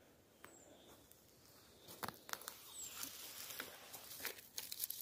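Faint, irregular crackling and rustling of twigs and leaf litter on a forest floor, starting about two seconds in.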